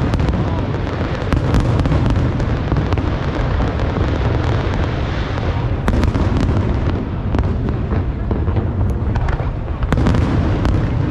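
Large aerial fireworks display: a continuous low rumble of booms, with sharp bangs standing out about one and a half, six and ten seconds in.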